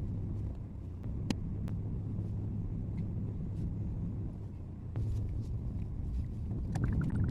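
A car's engine and road noise heard from inside while driving: a steady low rumble, with a few faint clicks and knocks.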